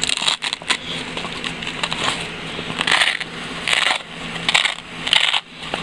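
Hook-and-loop (Velcro) flaps on nylon magazine pouches being pulled open: a few short tearing rips about three, three and a half and four and a half seconds in, among clicks and handling noise of the fabric gear.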